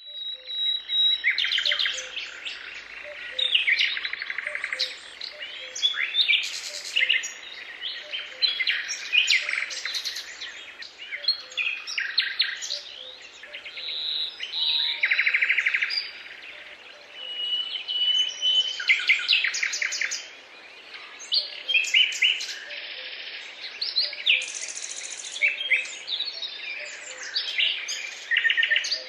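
Several songbirds singing at once: overlapping trills, rapid chirps and whistled notes, with short lulls between bursts.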